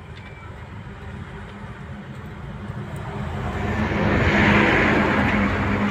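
A motor vehicle engine running with a steady low hum, growing louder through the first half and staying loud near the end.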